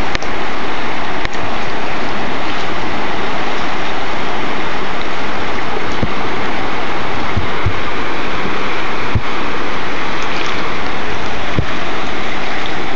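River rapids rushing steadily and loudly, with a few brief low bumps around the middle.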